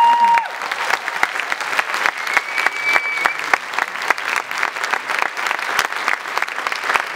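Audience applauding steadily, dense hand-claps throughout, with a whistle that rises and holds at the start and a short higher whistle about two and a half seconds in.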